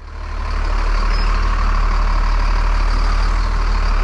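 A large vehicle engine idling steadily, a low even rumble that builds up over the first half second and then holds.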